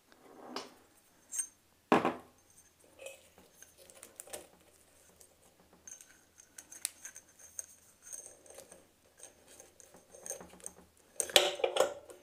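Handling noise from ceiling fan parts being taken apart and reassembled by hand: scattered clicks, taps and light knocks of plastic and metal pieces, with a sharp knock about two seconds in and a louder flurry of clatter near the end.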